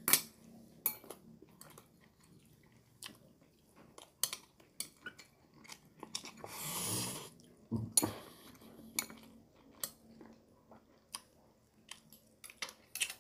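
Close-miked eating: a man chewing grilled eel and rice, with sharp clicks of metal chopsticks against a ceramic rice bowl. About six seconds in, a longer noisy sound lasting around a second as he bends over the bowl to eat.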